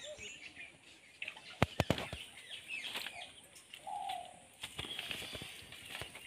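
Handling sounds: a quick cluster of sharp slaps and knocks about two seconds in, and a few lighter knocks later, over faint bird chirps.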